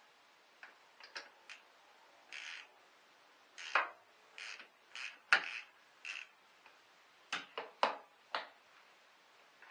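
Irregular clicks, knocks and short plastic rattles as the plastic covers at the back of a Mercedes CLK 350 engine bay are handled and unclipped to reach the battery. The sharpest knock comes about five seconds in, with a quick run of clicks near eight seconds.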